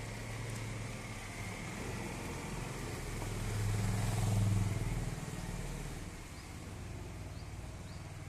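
Audi A4 2.0 TDI four-cylinder turbodiesel engine running at low speed as the car pulls into a driveway, a steady low hum that grows louder for a second or two near the middle, then eases off.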